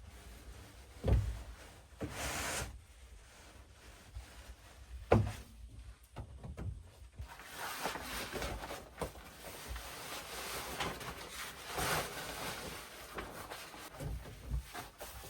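Handling noises: two sharp knocks, a short swish, then several seconds of rustling and scraping, with a couple of dull thumps near the end.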